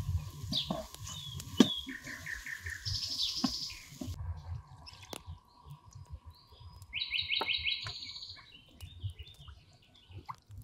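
Small songbirds chirping and singing quick trills of repeated notes, with scattered light clicks and knocks of a wooden spoon in a metal frying pan.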